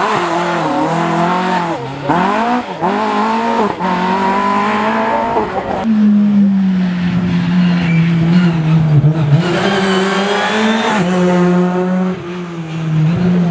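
Rally car engines at full throttle, the pitch climbing and dropping with each gear change as the cars pass. The sound changes abruptly twice, around six and eleven seconds in, as a different car takes over.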